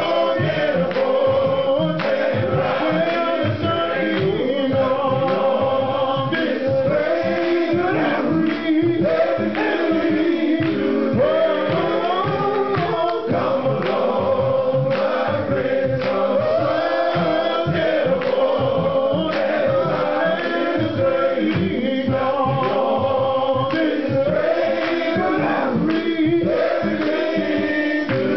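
Men's gospel choir singing, with a male lead singer on a microphone, over a steady beat.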